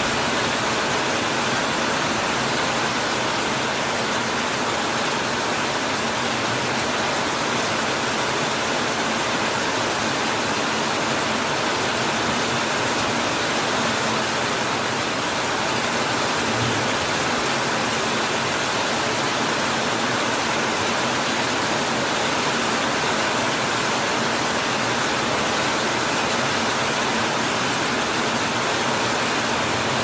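Heavy rain falling steadily on a corrugated metal roof and broad banana leaves, a dense, even hiss that does not let up.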